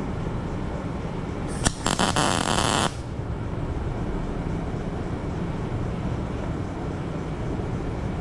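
MIG welder striking an arc for a single tack weld on a corner: a crackling arc starts about a second and a half in and runs for about a second and a half, then stops. A steady low hum runs underneath.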